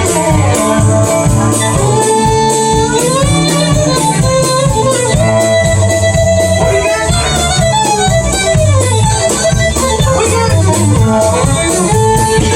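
Fiddle solo with sliding and held notes over a country band's bass and steady rhythm, during an instrumental break between sung verses.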